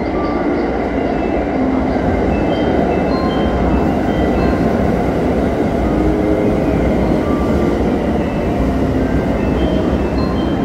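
Limited express Thunderbird electric train pulling into a station platform, its wheels and running gear giving a steady loud rumble.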